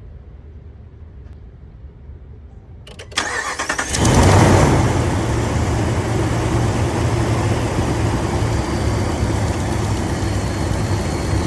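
Truck engine cranked over by the starter about three seconds in, catching about a second later with a brief rise in revs, then settling into a steady idle. It is running with a freshly replaced belt pulley and the belt back on.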